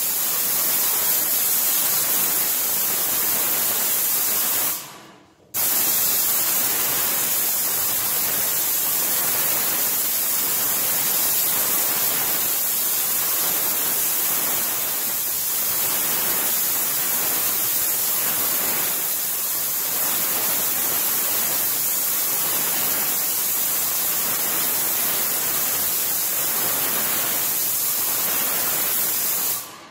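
Yokiji 120 paint sprayer's gun spraying paint onto a wall: a loud, steady hiss that stops briefly about five seconds in, then runs on and cuts off near the end.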